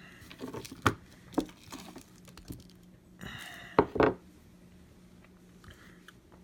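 Small handling sounds from work on an opened iPad mini: a few light clicks and taps of tools and parts, the sharpest pair about four seconds in, with a short rustle just before them, over a faint steady hum.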